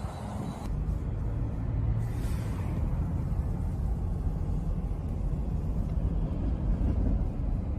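A steady low rumble with a faint humming undertone, without any sharp blast.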